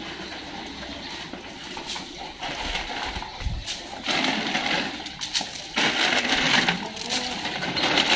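A plastic bag of dog food crinkling and crunching as it is handled among a pack of feeding dogs, in rustling bursts that get louder about halfway through.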